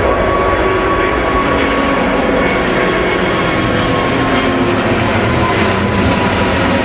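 Airbus A380's four jet engines, loud and steady as the airliner climbs low overhead, a heavy rumble with a whine that slowly drops in pitch as it passes.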